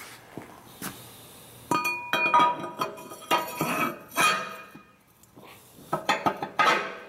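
A Cummins 8.3L diesel's cylinder liner clinking and knocking against the engine block as it is slid by hand into its bore. There are several metallic knocks and scrapes, with one short ringing clink about two seconds in.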